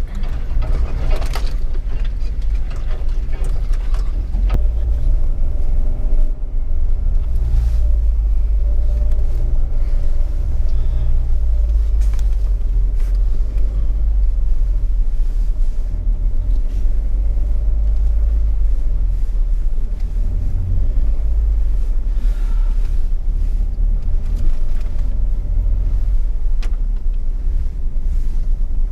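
Jeep driving slowly over a rough off-road trail: a steady low rumble of engine and tyres, with a few brief knocks as it bumps over the ground.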